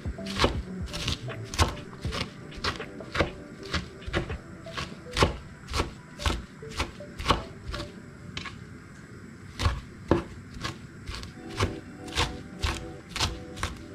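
A cleaver chopping fresh sorrel leaves on a wooden cutting board, the blade knocking on the wood about twice a second in a slightly uneven rhythm.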